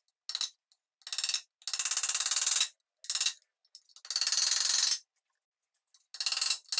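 A hand file rasping against a hard black plastic post, cutting it down in six uneven strokes, some short and some about a second long, with silent pauses between.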